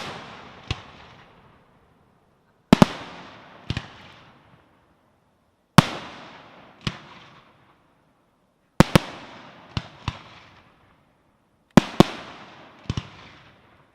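Fireworks display: sharp bangs coming in groups of two or three about every three seconds, the first of each group the loudest, each followed by a long echoing decay.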